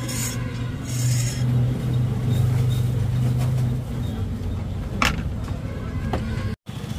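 A vehicle engine running close by, a steady low hum that fades out about four seconds in. A sharp click comes about five seconds in, and the sound cuts out for a moment near the end.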